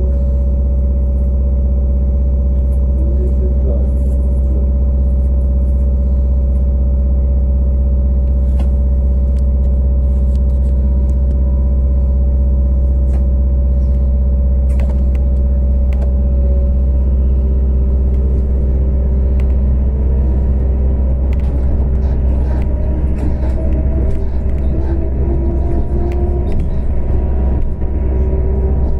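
Inside a trolleybus: a steady low electric hum with several fixed tones over it while it stands, then, about two-thirds through, a rising whine from the traction drive as it pulls away.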